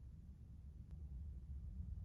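A lull between bursts of marble clatter: only a low, steady hum of room tone, with one faint tick about a second in.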